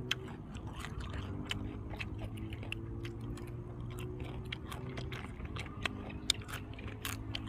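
Close-up chewing of fried dried squid: a steady run of small crunchy, sticky clicks as a man bites and chews the tough pieces.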